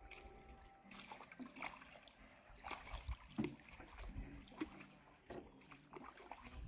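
Faint small waves lapping and splashing irregularly at the lake's edge.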